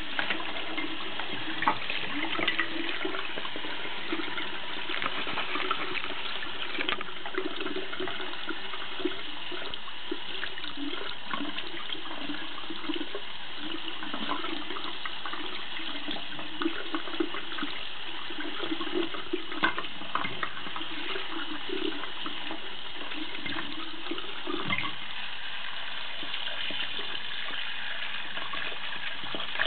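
Tap water running in a steady stream and splashing over a small plastic action figure held under it in a sink, with a few light knocks as the figure is handled.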